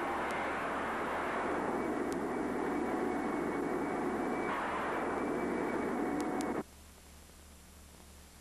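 100,000-watt Tesla coil discharging long arcs, a loud steady noise that cuts off suddenly about six and a half seconds in, leaving only faint hiss.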